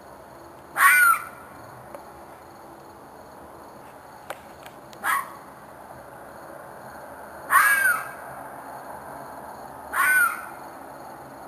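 A wild canine, which the recordist takes for a fox, giving short, harsh calls with an arching pitch, four in all a few seconds apart, the third the loudest. To the recordist it sounded like an animal in distress.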